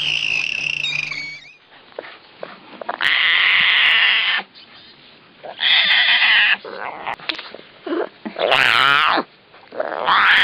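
An animal calling loudly, four harsh, drawn-out cries of about a second each with quiet gaps between, after a short high-pitched call at the start.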